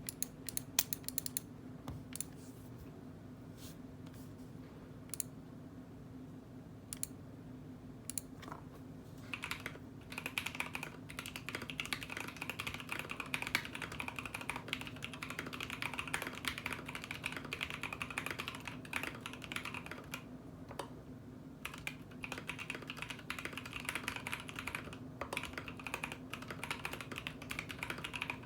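Mechanical keyboard with Durock T1 tactile switches being typed on: a few scattered key presses at first, then fast continuous typing from about nine seconds in, with a short pause about two-thirds of the way through. A low steady hum runs underneath.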